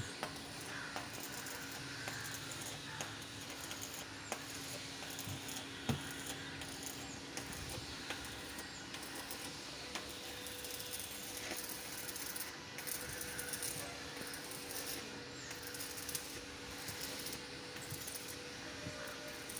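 Electric arc welding: the steady crackling sizzle of the arc, with many small sharp clicks and a steady low hum.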